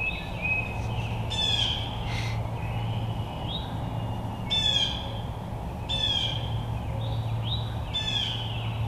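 Wild birds calling: several short, rattly, downward calls a second or two apart, with rising whistled notes in between, over a steady low hum.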